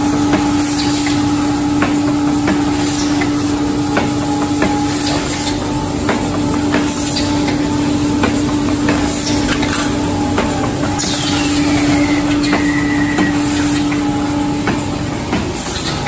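AF-45AT automatic aluminium foil container production line running: a steady hum under repeated clanks and knocks about once or twice a second, with short hisses of compressed air from its pneumatic stacking arms every couple of seconds. A falling whistle sounds about eleven seconds in.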